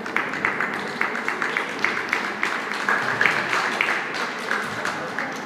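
Scattered applause from a small audience, individual claps standing out several times a second and echoing in a large hall.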